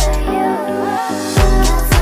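Background pop/funk music with a steady beat; the bass and kick drum drop out briefly in the middle and come back in.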